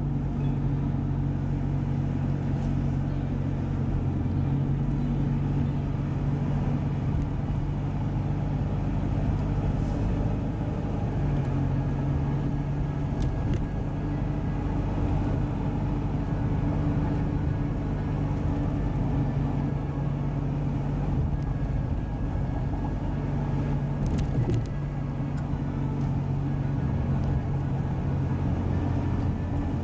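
Toyota Voxy minivan's engine running with a steady low drone, its pitch stepping slightly a few times.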